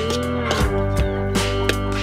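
Background music with a steady beat and held notes, one of them sliding in pitch near the start.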